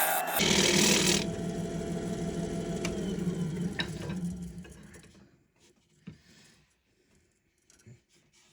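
Wood lathe with a scraper rasping on green, wet wood; the tool comes off about half a second in. The lathe keeps running with a low hum, then winds down and fades out about five seconds in, leaving a few faint clicks.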